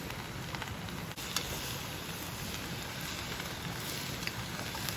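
Wood campfire burning: a steady hiss with a few sharp crackles.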